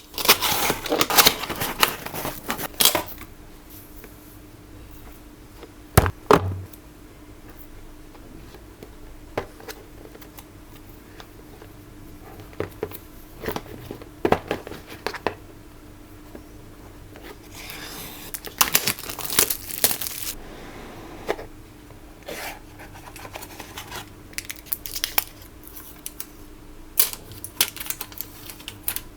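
Packaging of a boxed pair of wireless earbuds being handled and opened: irregular rustling, tearing and crinkling of paper and plastic with scattered clicks and knocks, a sharp knock about six seconds in.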